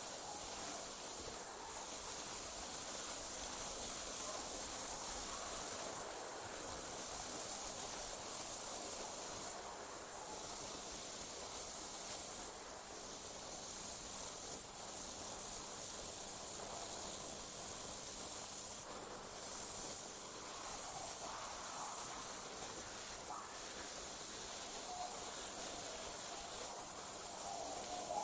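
Night insects, likely crickets, trilling in a high, steady chorus that breaks off briefly every few seconds, with a fainter lower warbling near the start and end.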